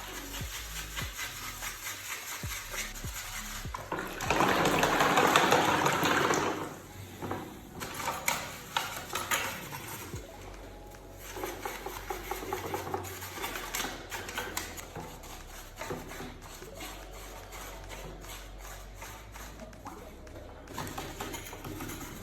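Running water splashing, loudest for about two seconds a few seconds in, with scattered clicks and knocks of parts being handled.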